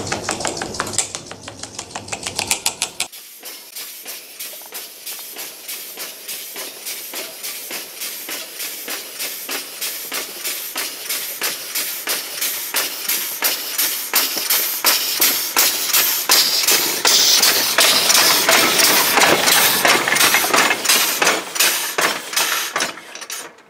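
Home-made twin-cylinder compressed-air locomotive chuffing along a narrow-gauge track: a steady rhythm of sharp air-exhaust puffs with hiss, growing louder as it approaches, loudest past the middle, then fading as it passes. The first three seconds hold a separate short clanking intro sound.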